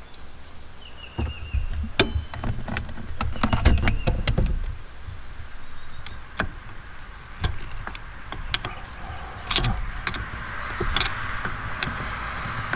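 A screwdriver prying at the steering wheel's horn cover: scattered sharp clicks, taps and scraping of metal on plastic, with a rumble of handling in the first few seconds.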